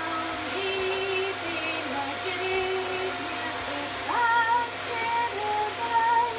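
Cylinder vacuum cleaner running steadily with a constant whine as it is pushed over a wooden floor, while a woman sings over it in held, sliding notes.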